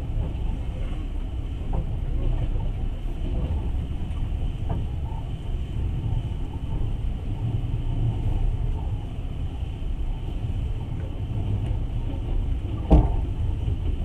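Passenger train running on the rails, heard from inside the carriage: a steady low rumble, with one sharp knock about thirteen seconds in.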